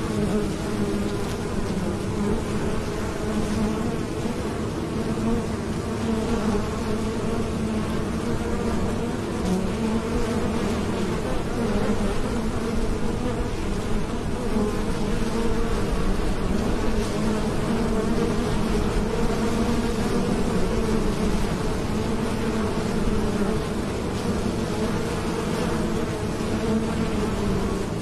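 Many honeybees buzzing as they fly in and out around a hive entrance: a steady, continuous hum of overlapping wingbeats whose pitch wavers slightly.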